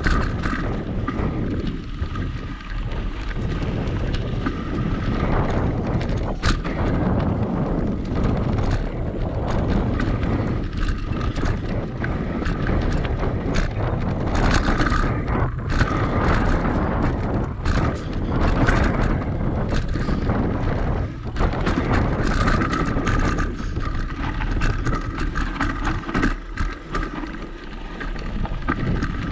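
Mountain bike riding down a dirt singletrack: tyres rolling over dirt and loose rocks, the bike rattling and clacking over bumps, with steady wind noise on the microphone.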